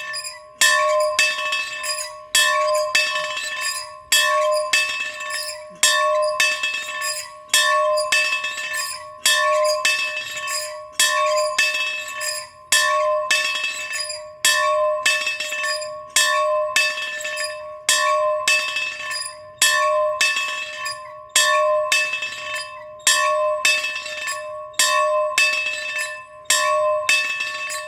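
A single bell rung over and over in a steady rhythm, each stroke ringing on at one clear pitch. A louder stroke comes about every second and a half to two seconds, with softer strokes in between.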